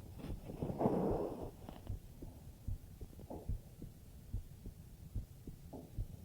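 A human heartbeat heard close up against the chest: a steady run of soft, low thumps. About a second in there is a brief, louder rushing noise over the beats.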